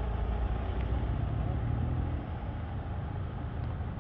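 Engine of a large decorated truck running as it drives past, a low rumble that is strongest in the first two seconds and then eases off.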